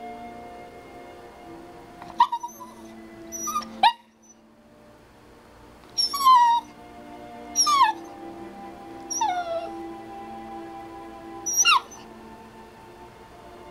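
Small Yorkiepoo dog giving about seven short, high whining yips, each sliding down in pitch, spaced a second or two apart: begging for her dinner.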